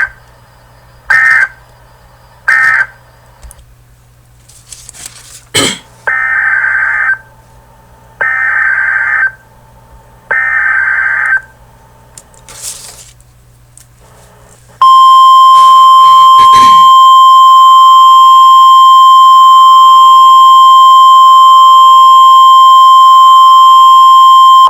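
Emergency Alert System tones. Three short SAME end-of-message data bursts come first. After a click, three buzzy SAME header bursts of about a second each follow, spaced about two seconds apart. Roughly fifteen seconds in, a loud steady single-pitch NWS alert tone of about 1050 Hz starts and holds for about ten seconds.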